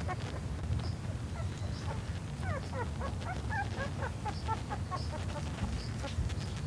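Miniature dachshund puppies making short high squeaks and whimpers while suckling from their mother, many in quick succession through the middle, over a low rumble.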